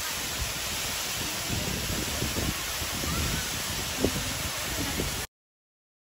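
Water pouring down a tall rock-face waterfall, a steady rushing hiss, with gusts of wind on the microphone and a short knock about four seconds in. The sound cuts off suddenly a little after five seconds.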